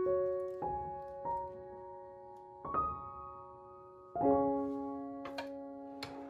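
Slow solo piano music, single notes and chords struck about once every second or so and left to ring and fade.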